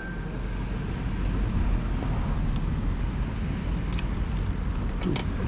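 Steady low rumble of wind and road noise while riding, with a few faint ticks near the end.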